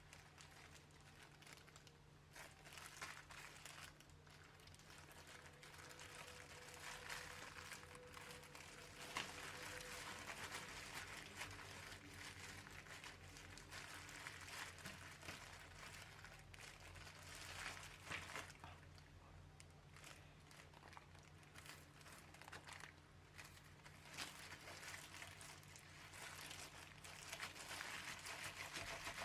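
Faint crinkling and rustling with scattered small clicks, over a steady low hum.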